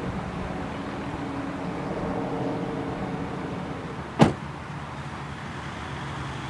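Steady hum of a car, with one sharp slam about four seconds in, such as a car door shutting.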